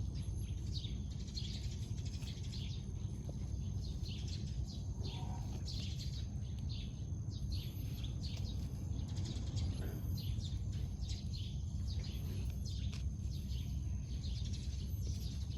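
Small birds chirping in short, scattered calls, over a steady low rumble.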